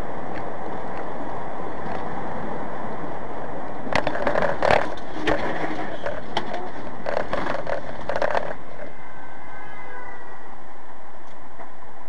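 Steady rumble and rattle of road noise inside a semi-truck cab, picked up by the dashcam's microphone while driving on the highway. Louder clatter and knocking come in two stretches, about four seconds in and again around seven to eight seconds.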